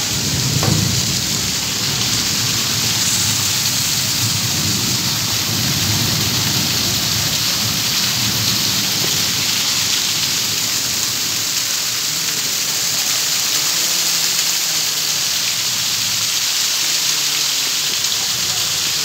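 Heavy rain pouring down onto a flooded street: a loud, steady hiss. A low rumble of thunder runs under it through roughly the first half and then fades.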